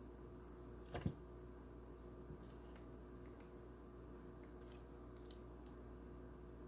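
Lock pick and tension wrench clicking and rattling in a lock as it is picked. A short cluster of sharp metallic clicks comes about a second in, followed by a few scattered faint ticks.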